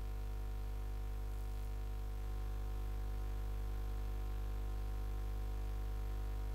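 Steady low electrical hum with many even overtones, unchanging throughout; no other sound.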